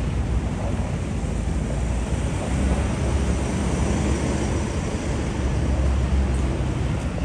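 Steady city street ambience: an even low rumble with a wash of noise over it.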